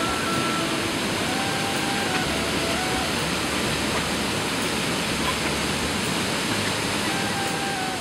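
Dudhsagar Falls in monsoon flow, water cascading down a rock cliff into a pool: a steady, even rush of falling water. Faint held music notes drift under it.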